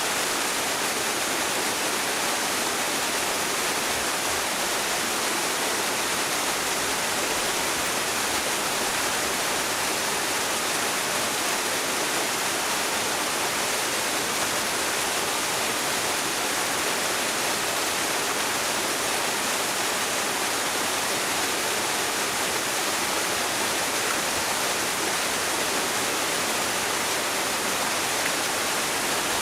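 Small waterfall, about 8 m high, pouring steadily into its pool: an even, unbroken rush of falling water.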